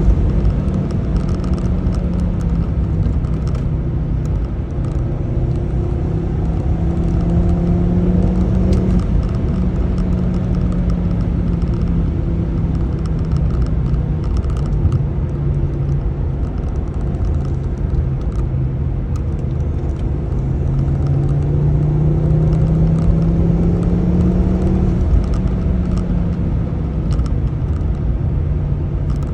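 Ford Focus ST225's turbocharged 2.5-litre five-cylinder engine running under way, with steady road rumble. Revs hold fairly level for long stretches, then climb slowly late on and fall away.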